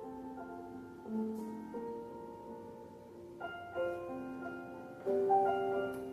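Slow piano music: held notes and soft chords, with a new chord struck every second or two.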